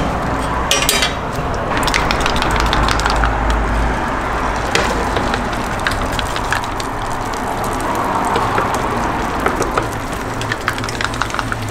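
Egg and corn sizzling in rectangular steel frames on a hot buttered griddle, with many sharp clicks and taps scattered through it. A low rumble runs under it for the first few seconds.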